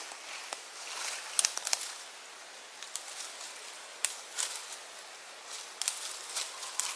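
Dry twigs snapping off a dead branch by hand, a string of sharp cracks, with dead leaves rustling underfoot. The loudest snaps come about a second and a half in and again near the end.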